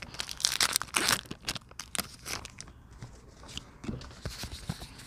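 A foil Pokémon trading-card booster pack being torn open and crinkled by hand. There is a dense tearing burst about half a second in, then scattered light crackles and clicks as the pack is handled and the cards come out.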